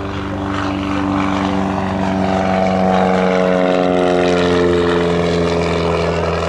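Mooney M20F's four-cylinder Lycoming engine and propeller at takeoff power, growing louder as it passes; about two seconds in, its pitch starts to drop slowly as it goes by.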